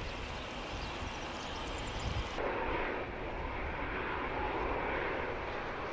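Dassault Falcon 7X trijet's turbofan engines running steadily as the jet taxis. About two and a half seconds in, the sound cuts abruptly to a louder, fuller jet noise from a Falcon 7X on the runway.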